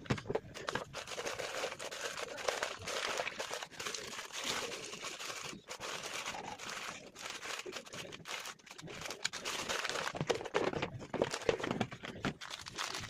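Continuous crinkling and rustling made up of many small crackles and clicks.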